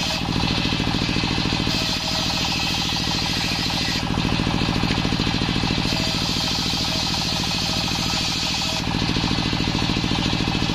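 Engine-driven table circular saw running steadily as it rips a waru (sea hibiscus) plank, the engine's even rapid pulsing under a continuous hiss of the blade. The sound grows heavier for a few seconds at a time as the blade takes the load of the cut.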